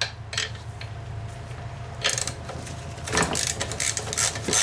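Socket ratchet turning a spark plug out of a small lawn mower engine's cylinder head: irregular ratchet clicks and short metal scrapes, busier in the second half.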